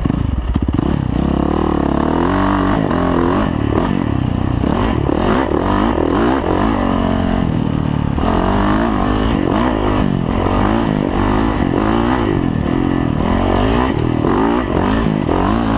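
2010 Yamaha YZ450F dirt bike's 450 cc single-cylinder four-stroke engine being ridden hard, its pitch rising and falling over and over as the throttle is opened and closed.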